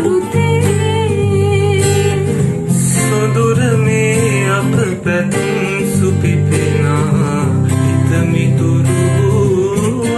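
Acoustic guitar played as accompaniment to singing of a Sinhala song.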